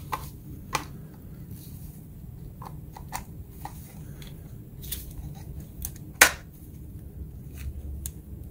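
Scattered plastic clicks and knocks as a 20V lithium-ion battery pack is handled and set onto its charger, with one sharper click about six seconds in as it seats.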